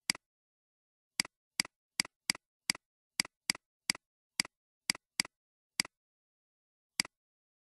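Computer mouse button clicking about fourteen times at irregular intervals, each a sharp double click of press and release, with dead silence between clicks.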